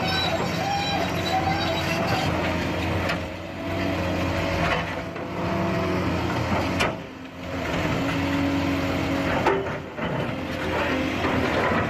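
Heavy vehicle engine running, with a sharp knock about three-quarters of the way through.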